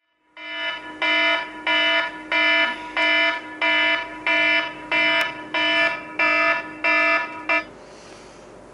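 Tablet's alarm ringing: a repeating electronic beep, about a dozen identical pulses a little over half a second apart, that cuts off suddenly near the end as the alarm is stopped.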